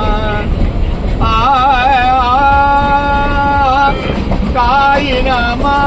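A singer's voice singing a devotional bhajan: long held notes broken by quick wavering ornaments, over a heavy low rumble of background noise.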